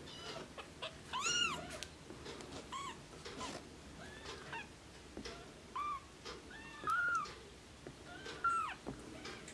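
Newborn Oriental Shorthair kittens mewing: a string of short, high-pitched cries, each rising and falling in pitch, about seven in all, the loudest about a second in.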